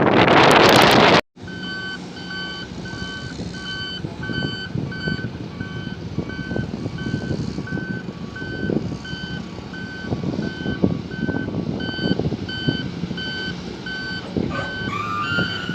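Wind buffeting the microphone, cut off about a second in; then a Cat 140 motor grader's reversing alarm beeping about one and a half times a second over its diesel engine running, with scattered knocks. Near the end a rising squeal joins in.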